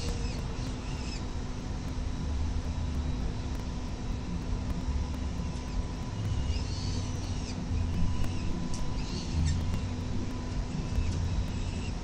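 Falcon nestlings giving brief, high-pitched squeaky begging calls a few times while being fed, over a steady low rumble of city traffic and wind.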